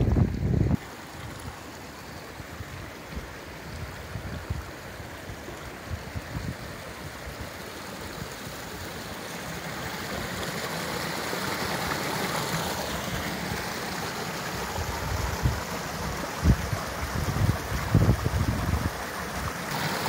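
Small mountain stream rushing and splashing down a little rocky cascade, a steady noise that grows louder about halfway through. Wind buffets the microphone for the first second.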